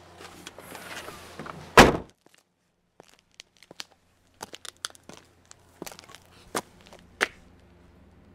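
A loud thump about two seconds in, followed by a scatter of faint clicks and taps, two of them stronger near the end.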